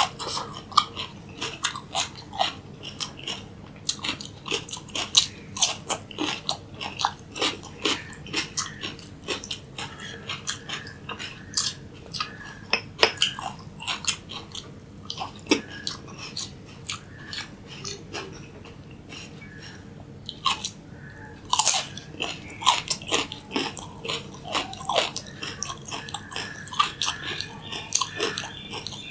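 Close-miked biting and chewing of raw vegetables (cucumber, tomato and carrot sticks): quick runs of sharp, crisp crunches, easing to softer chewing for a few seconds about two-thirds of the way through before loud crunching picks up again.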